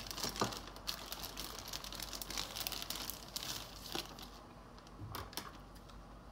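Clear plastic zip-lock bags crinkling and rustling as they are handled, busy for the first few seconds, then thinning to a few faint crackles.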